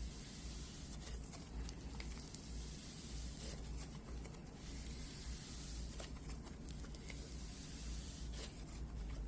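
Pumice slime being squished and worked between the hands: a soft, gritty squishing texture with scattered faint ticks.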